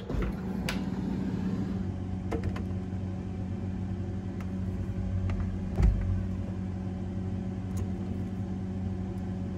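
Frigidaire side-by-side refrigerator-freezer running with its freezer door open, a steady low hum. Light clicks and knocks come as a toy figure is handled on the wire shelf, with a louder thump about six seconds in.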